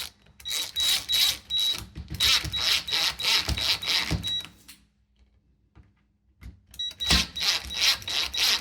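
Cordless drill driver tightening the smart lock's long mounting screws, in two spells of rapid clicking with a high whine, a pause of about two seconds between them.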